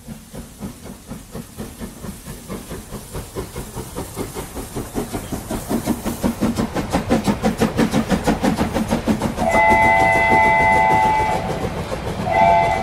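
Steam locomotive chuffing in a steady rhythm that grows louder and faster as it gets under way, then two blasts of its chime whistle, the first about two seconds long, the second starting near the end.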